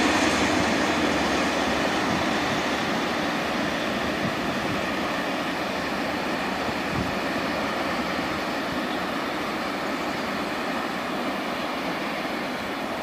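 Freight train of open wagons and tank wagons rolling away over the rails: a steady running noise of wheels on track that slowly fades as the train recedes.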